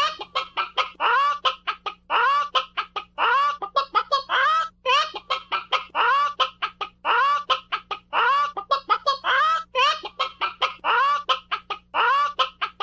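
Chicken clucking: quick runs of short clucks, each run ending in a longer drawn-out cluck, repeating about once a second.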